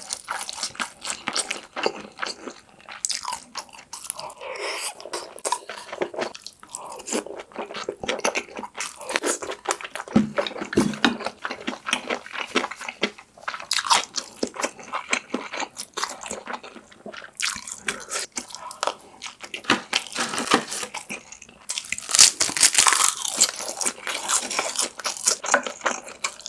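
Close-miked chewing of braised kimchi and Spam: wet crunching and smacking mouth sounds, with a louder run of crunching near the end.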